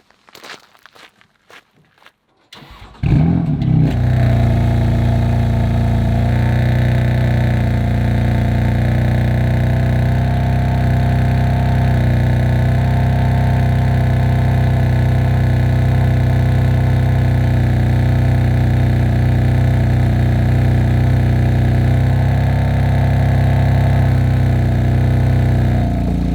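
A few faint clicks, then a BMW M4's S55 twin-turbo straight-six starts about three seconds in with a brief flare and settles into a steady idle. The original downpipes are still fitted.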